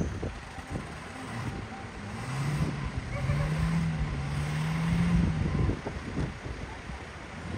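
A vehicle engine revving, its pitch climbing steadily for about three seconds before dropping away, over a low rumble.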